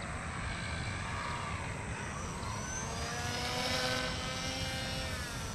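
Small electric RC plane's motor and rear-mounted pusher propeller whining in flight. The whine grows louder about three seconds in, then slides steadily down in pitch as the plane passes.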